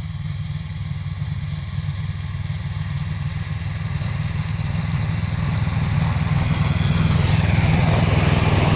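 Small engine of a Barbos tracked motorized towing dog running at a steady, even pitch, growing gradually louder as the machine comes closer across the ice.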